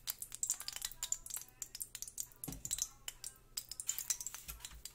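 Hot oil in a kadai crackling with fast, scattered ticks, over soft background music, with one dull low bump about halfway through.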